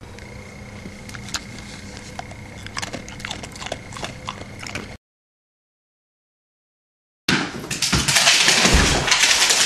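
A dog chewing and crunching treats: scattered sharp crunches over a faint steady hum. It cuts off suddenly, and after about two seconds of dead silence a much louder, rough, clattering noise starts and runs to the end.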